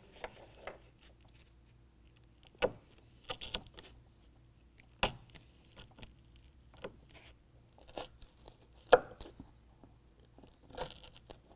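Razor knife cutting small X slits through a carpet bed liner: a scatter of brief scrapes and sharp clicks a second or two apart, the sharpest about nine seconds in.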